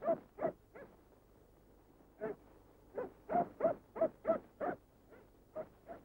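A dog barking in short, separate barks: a few near the start, then a quick run of about three barks a second, fading to fainter barks near the end.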